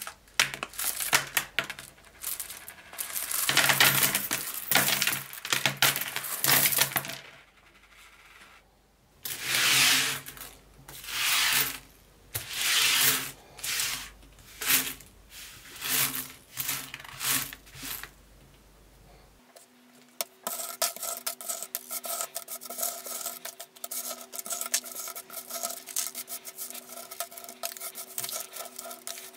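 Loose metal coins clinking, pouring and sliding on a tabletop as hands sweep and scatter them, in bursts of jingling. About two-thirds of the way in, a steady hum of a few held tones joins under continued fast coin clicking.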